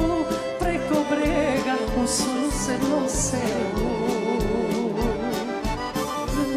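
Live folk band playing an instrumental passage between sung lines: violins and accordion carry a wavering melody over a steady bass-and-drum beat.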